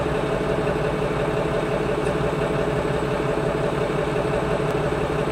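Forklift engine idling steadily, heard from inside the cab, with an even low pulsing and a steady hum.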